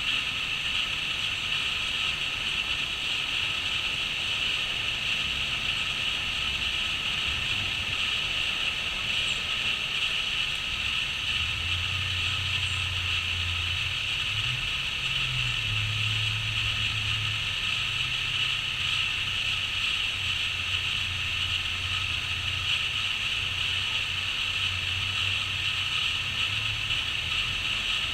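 Crickets trilling in a steady, continuous chorus, with a low hum underneath that grows stronger about halfway through.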